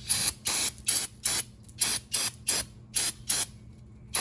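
Aerosol brake cleaner sprayed onto new brake pads in about ten short hissing bursts, to clean the factory residue off them before fitting.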